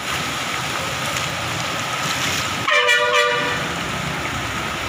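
A vehicle horn gives one short honk, lasting under a second, about three seconds in. Behind it is a steady rush of rain and traffic through a flooded street.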